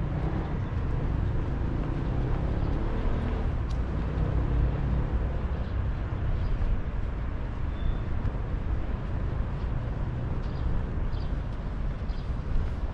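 City road traffic: a steady rumble of passing cars and buses, with one vehicle's engine note rising in pitch over the first few seconds.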